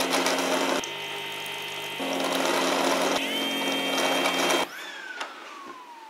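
yeedi mop station robot mop whirring loudly with a whining motor as it backs out of its self-cleaning dock to start cleaning. The whine rises in pitch about three seconds in and cuts off suddenly a little before the five-second mark, leaving a quieter tone that slides down in pitch, with a couple of faint clicks.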